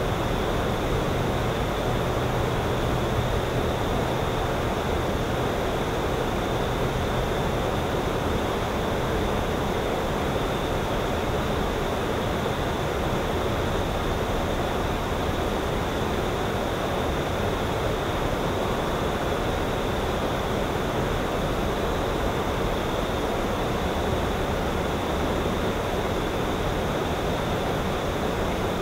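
Steady, even rushing noise of outdoor ambience with no distinct events, and a faint low hum through roughly the first third.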